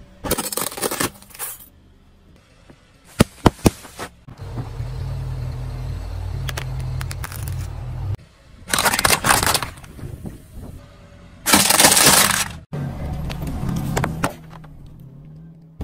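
A car tyre crushing objects one after another: separate crunches and cracks, with three sharp snaps a few seconds in, a crunching burst just after the middle, and the loudest and longest crunch near the end as aluminium soda cans are flattened. A steady low hum runs between the crushes.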